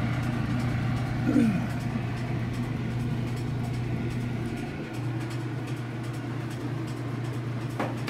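Kenmore top-loading washing machine running, a steady low motor hum. A brief falling tone sounds about a second and a half in.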